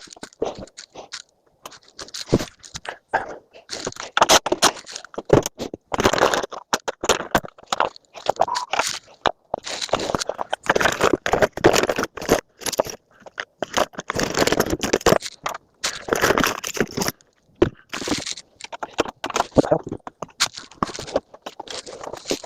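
Scrap metal being pulled apart and handled by hand: irregular scraping, crunching and sharp metallic clicks, with no steady rhythm.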